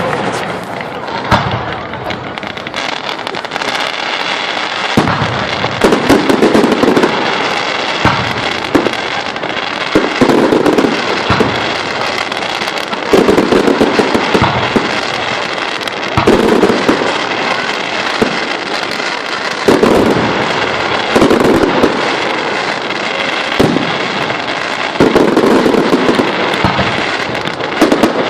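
Fireworks display: a continuous barrage of shell bursts, sharp bangs every second or two with dense crackling between them, heard through a phone's microphone.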